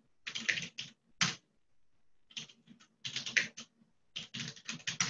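Computer keyboard typing in several short bursts of quick keystrokes with brief pauses between them, as shell commands are entered.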